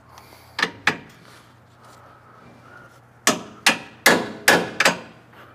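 A hammer tapping on stuck suspension bolts to drive them out of a rear lower control arm's mounts. There are two taps about half a second in, a pause, then five more in a quick run, between two and three a second, near the end.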